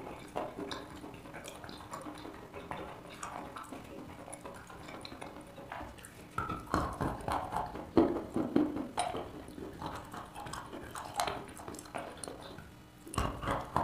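Chalk being bitten and chewed: wet crunching and clicky mouth sounds. The crunching is quieter at first and grows louder from about six seconds in.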